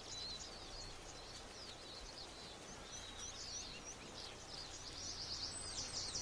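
Faint chorus of small birds chirping and twittering, many short high-pitched calls, over a low steady hiss.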